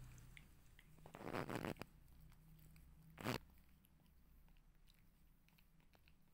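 Kittens chewing and crunching meat scraps, faint small clicks and smacks, with a louder brief rustle about a second in and a short sharp one about three seconds in.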